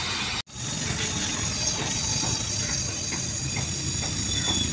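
Oxy-acetylene gas welding torch flame burning with a steady hiss as it welds a leak in a steel diesel tank with filler rod. The sound breaks off for an instant about half a second in, then the hiss carries on with a few faint pops or clicks.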